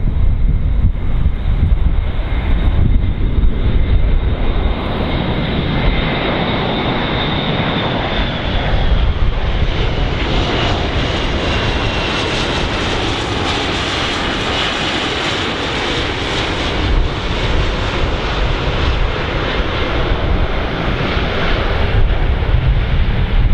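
Airbus A400M's four turboprop engines, with their eight-bladed propellers, droning on landing approach. A steady high propeller whine in the first half turns into a broad rushing roar from about ten seconds in as the aircraft comes close. Low wind rumble on the microphone is heard at the start and near the end.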